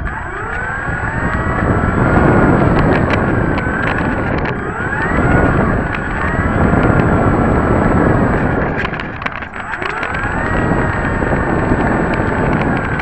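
Radio-controlled model T-28's motor and propeller, heard close up from under the fuselage, revving up and easing back several times while the model taxis. Its whine rises and falls with each throttle change, with scattered clicks over the top.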